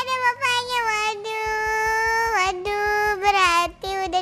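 A high-pitched voice singing long held notes, with a steady beat joining underneath about a second and a half in.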